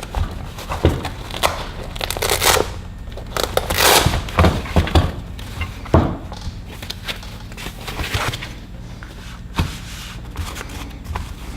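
Crinkling and tearing of a tool kit's packaging being opened by hand, with irregular clicks and knocks as the tools are handled.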